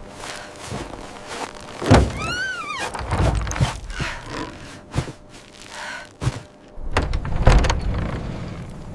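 A series of heavy thuds and knocks, loudest about two seconds in and again near the end. Just after the first thud comes a short squeak that rises and then falls in pitch.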